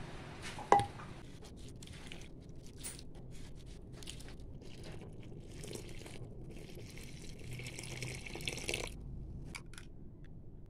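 A spoon scraping and crunching through dry flour in a bowl, with a sharp knock about a second in. Then liquid is poured onto the flour for a couple of seconds near the end, a steady splashing hiss.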